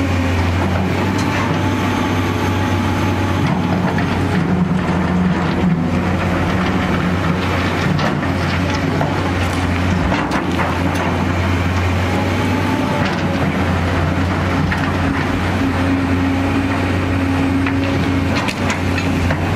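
Volvo crawler excavator's diesel engine running steadily at working speed as the arm and bucket dig, with a few short knocks and scrapes from the bucket in soil and stones.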